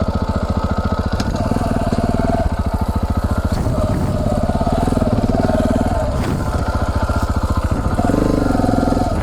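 Single-cylinder dual-sport motorcycle engine, the KTM 690 Enduro's LC4 single, running steadily at low revs. Its individual firing pulses are distinct and its pitch shifts a little with the throttle.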